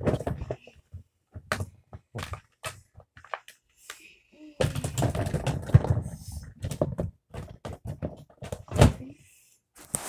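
Fidget toys being put away by hand: scattered knocks and clicks, a longer stretch of clattering and rustling in the middle, and a heavier thud near the end.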